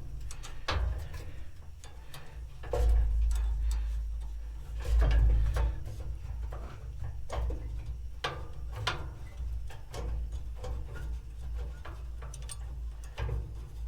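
Irregular clicks and metal clanks of hand tools working loose parts of a gas grill, over a low rumble that swells between about three and five seconds in.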